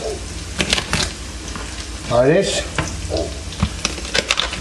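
Chopped onion frying in oil in a pan, a steady sizzle, with sharp clicks and cracks of a chef's knife cutting through a lobster's shell onto a plastic cutting board. A short bit of voice comes in about two seconds in.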